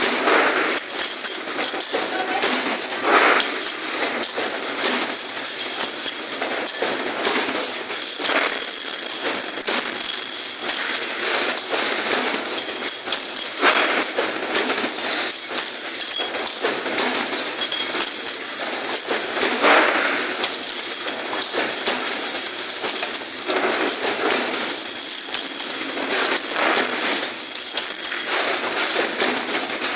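Machinery running continuously: a steady rattling clatter with a constant high-pitched whine.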